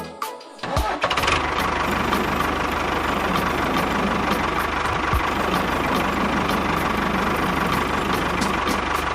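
A small engine starts about a second in and runs steadily, with a fast low chugging under a dense mechanical noise.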